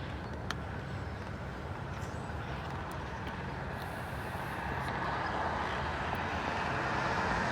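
Steady outdoor background noise with a vehicle passing, growing louder over the second half.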